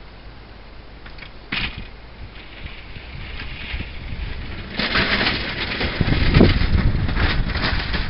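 1983 GMC Jimmy with a 400 V8 pushing snow with its plow blade. The engine and the rush of the pushed snow grow louder as the truck comes closer, loudest after about five seconds.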